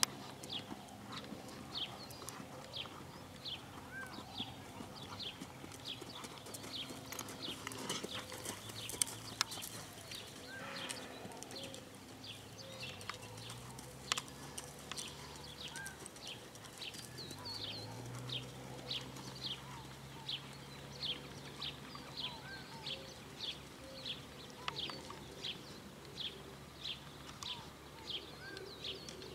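A bird calling over and over: short high chirps, about two or three a second, with a few softer curling notes now and then.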